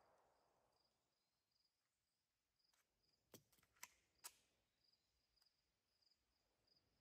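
Near silence: faint insect chirping in short high pulses, with three faint clicks a little past the middle as the Glock 44 .22 pistol is handled.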